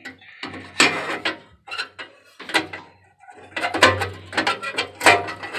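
Metal clanking and rattling from furnace burner tubes being handled and tapped to knock out built-up debris, in irregular clusters of sharp knocks.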